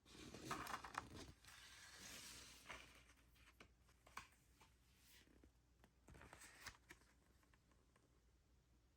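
Faint rustling and light clicks of a vinyl record's sleeve and packaging being handled, with a longer rustle at the start and a shorter one about six seconds in.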